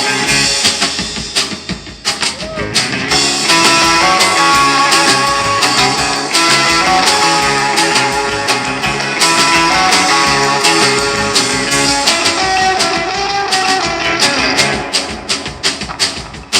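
Rock music with electric guitar over drums keeping a steady beat; it dips briefly about two seconds in and fades down near the end.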